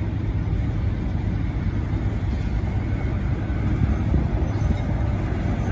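Steady low engine rumble of an idling vehicle.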